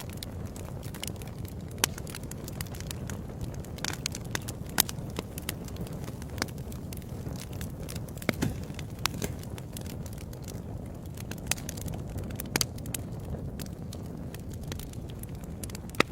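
Fireplace fire crackling: a steady low rumble of flames with frequent sharp, irregular pops and snaps.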